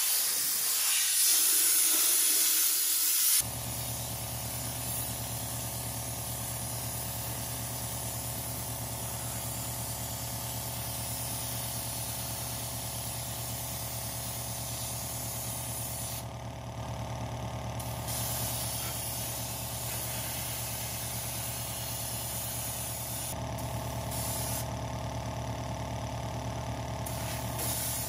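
Air-powered solvent spray gun hissing as it blasts solvent over a cast-iron engine block. About three seconds in, the loud hiss drops abruptly to a softer spray under a steady machine hum.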